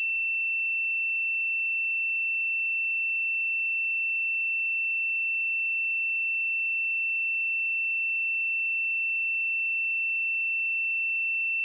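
A steady, high-pitched pure sine tone held at one unchanging pitch and level.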